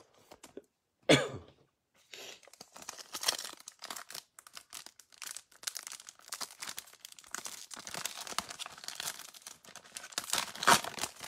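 A single cough about a second in, then the foil wrapper of a trading-card pack being crinkled and torn open by hand: a dense run of crackles and rustling that grows loudest near the end.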